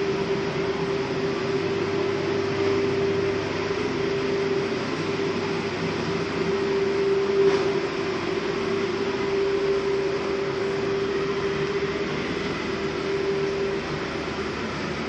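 Steady drone of a motor ship's engines heard on board, a constant hum under even mechanical noise, with one brief knock about halfway through.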